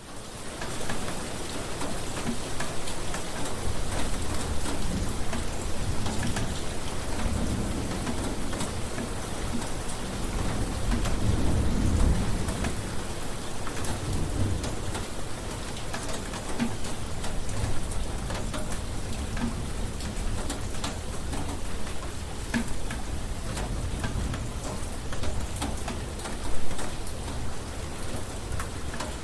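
Steady heavy rain falling, with a deep rolling thunder rumble that swells about ten seconds in and then fades back. There is one short louder burst near the end.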